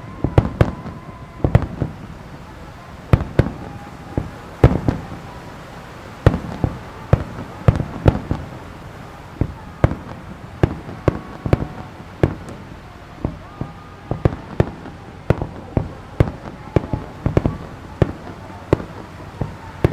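Star mine firework barrage: shells bursting in rapid succession as a run of sharp, irregular bangs, roughly one to three a second, some echoing briefly.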